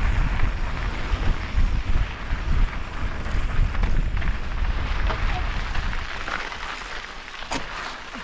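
Wind buffeting the microphone of a camera on a moving mountain bike, over the rolling crunch of tyres on a dirt and gravel trail. It gets quieter over the last two seconds as the bike slows, with one sharp knock near the end.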